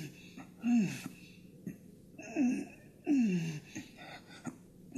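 A man groaning, three or four short moans that fall in pitch, with no words.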